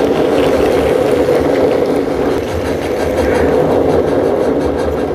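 A train going past: a loud, steady mechanical running noise with an uneven low rumble, which cuts off suddenly at the end.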